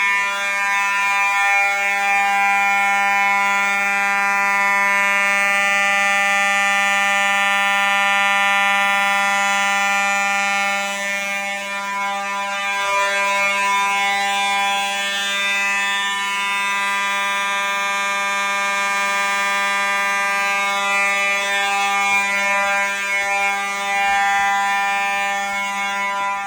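Fire alarm horn sounding a loud, steady, unbroken buzzing tone with a dense stack of overtones.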